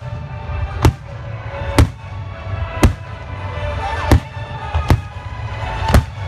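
Fireworks shells bursting overhead in sharp booms, about one a second, six in all, over music playing underneath.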